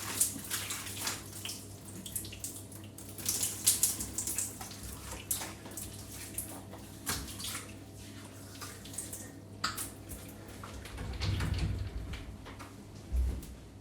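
Electric shower running while someone showers under it: water spray splashing unevenly, over a steady low hum. A low rumble comes about eleven seconds in and a single low thump near the end.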